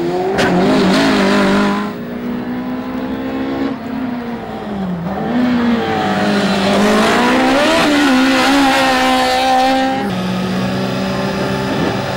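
Rally car engines revving hard, the pitch climbing and then dropping sharply several times as they change gear and brake and accelerate on a dirt stage. About ten seconds in, a steadier, level engine note takes over.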